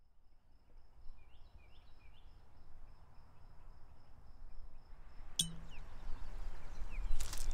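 Outdoor ambience fading in from silence: a low rumble of wind on the microphone that grows louder, with a few faint bird chirps and a faint high pulsing trill in the first seconds, and a sharp click a little past five seconds in.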